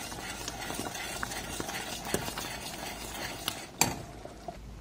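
A metal spoon stirring thick, hot cherry jam in a steel pan, with scattered clinks of the spoon against the pan. The sharpest clink comes near the end. This is the final mixing of the cooked jam after agar has been stirred in.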